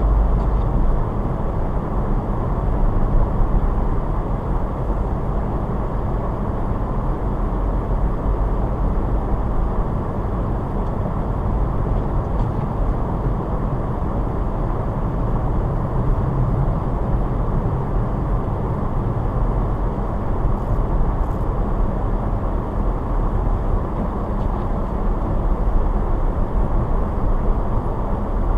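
A car driving along, its tyres and engine making a steady low rumble that holds even throughout.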